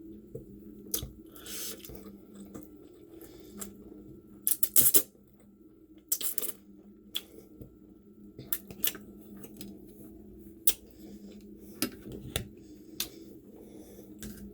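Eating utensils clicking and scraping against a plate during a meal, scattered sharp clinks with a louder clatter about four and a half seconds in, over a steady low hum.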